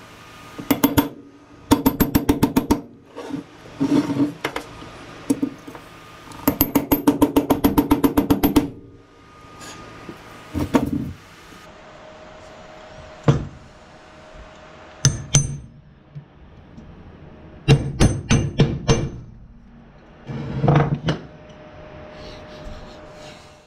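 A hammer tapping a socket to drive a rubber boot into the bore of a Chevy Silverado brake caliper bracket, with light metal-on-metal taps. It comes in quick runs of about ten taps a second, two of them in the first half, then single taps and short clusters with pauses between. The tapping works on one side to even up a boot that has gone in crooked.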